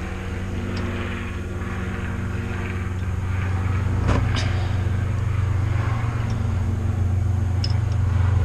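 A steady low mechanical hum, growing slightly louder, with a few light metallic clicks from a spanner unscrewing the brake pipe union from the caliper.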